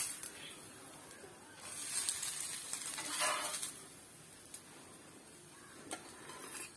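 Onion oats dosa sizzling on a hot cast-iron tawa, a soft frying hiss that swells for a couple of seconds and then dies down, with a few faint clicks near the end.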